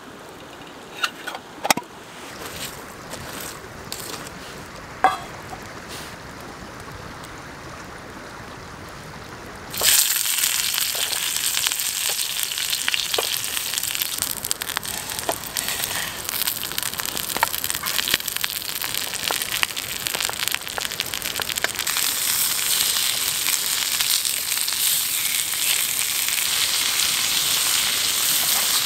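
A few sharp clicks over a quiet background. Then, about ten seconds in, a pan over a campfire starts sizzling loudly as food goes in, and it keeps frying steadily, a little louder near the end. The pan holds broccolini and lamb chops.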